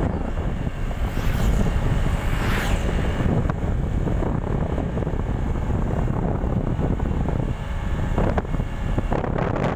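Wind buffeting the microphone over the steady running of a motorcycle on the road, with a brief louder rush about two seconds in.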